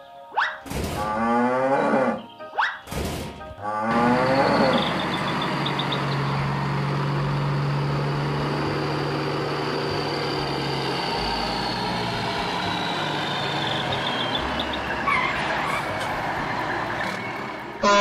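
Cartoon truck engine sound effect, starting about four seconds in and running steadily with a low hum, over background music. Two short pitched calls come before it.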